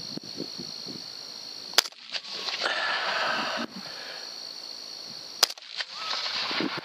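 Two rifle shots from a .308 AR-10, about three and a half seconds apart. A pig squeals after the first. Insects trill steadily throughout.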